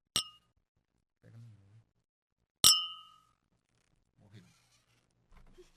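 Glasses clinked together in a toast, twice: a short clink just after the start, then a louder clink about two and a half seconds in that rings on briefly. Faint low murmurs of a voice sit between the clinks.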